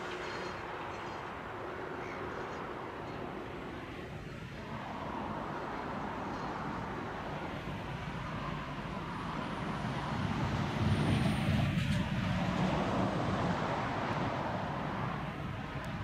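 John Deere 7830 tractor's six-cylinder diesel engine running steadily under load while pulling a reversible plough through the soil, heard from a distance. It swells louder for a few seconds about two-thirds of the way through.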